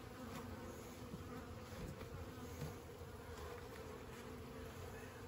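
A honeybee colony buzzing steadily, a massed hum of many bees around frames lifted from an open nucleus box. A few faint taps can be heard through it.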